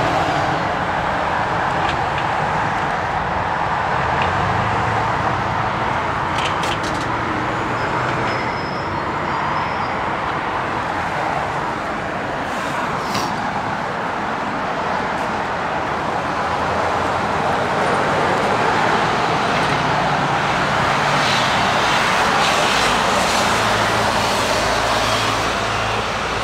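Steady rushing road-traffic noise with a low hum under it and a few faint clicks.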